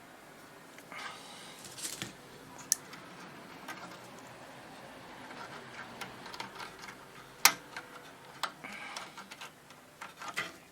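Scattered light clicks and taps of small hand tools and parts being worked on a valve radio chassis, with one sharp click about seven and a half seconds in and a couple of short soft hisses.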